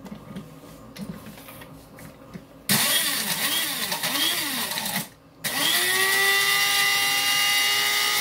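Electric blade coffee grinder grinding dried diced tomatoes into powder. After a few light clicks as the lid is handled, the motor runs in a short burst of about two seconds with a wavering pitch. It stops briefly, then runs again for about three seconds, its pitch rising and then holding steady.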